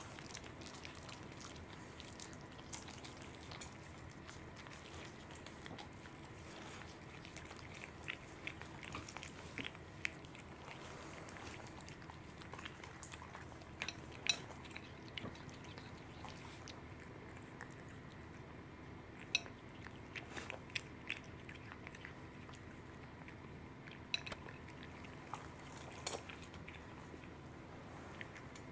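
A cat chewing raw salmon from a plate: scattered soft chewing clicks and smacks over a faint steady hum.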